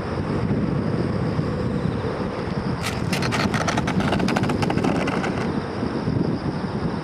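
Wind buffeting the microphone, with a rapid run of clicks and rattles starting about three seconds in as the small foam RC biplane's wheels touch down and roll over the dirt path; they stop about two and a half seconds later.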